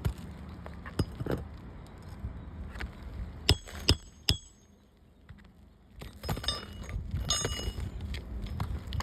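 Metal hand tools clinking and scraping against asphalt roof shingles during a shingle repair. There are several sharp metallic clicks, the loudest about three and a half and four seconds in, then a short lull, then a busier run of clinks and scraping.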